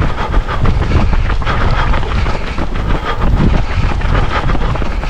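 Running footsteps of a crowd of runners on a tarmac path, a steady rhythmic patter, with wind rumbling on the microphone.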